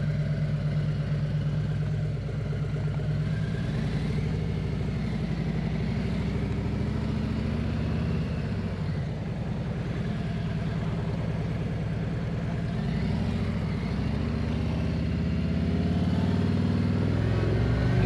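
Harley-Davidson Road King's V-twin engine running as the motorcycle pulls away and gets under way, engine speed rising and dipping a few times.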